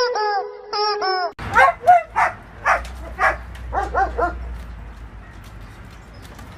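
A dog yipping: a quick run of short, high, whiny yips, about nine in three seconds, that stops a little past the middle.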